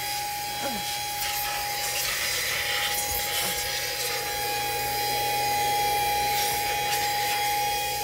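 Brigii cordless handheld vacuum running with a steady high motor whine, its nozzle rubbing and scraping over the car's steering wheel and dashboard plastic.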